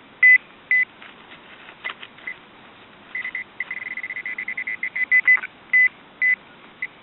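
Metal-detecting pinpointer probe beeping at one steady pitch as it is worked around a dug hole. It gives a couple of single beeps, then a fast run of about eight beeps a second for a couple of seconds where it meets metal, then a few more single beeps.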